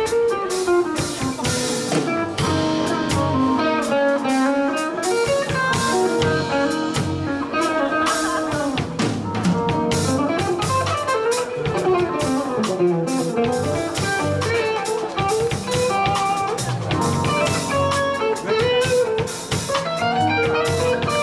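Live band playing an instrumental. An electric guitar plays a lead line with bending notes over electric bass and a drum kit.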